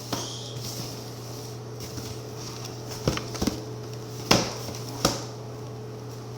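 Cardboard shoebox being handled and opened, with a few sharp knocks and taps about three, four and five seconds in, over a steady low hum.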